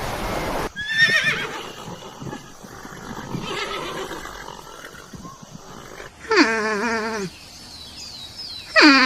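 Horse whinnying: two loud, quavering calls, each about a second long and falling in pitch, with a shorter call about a second in.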